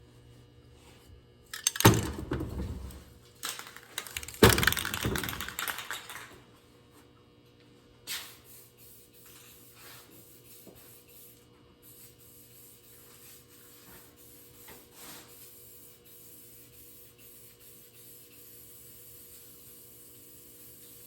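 Two loud clattering knocks about two and a half seconds apart, each rattling off for a second or so, then a single sharp click and faint scattered ticks over a low steady hum.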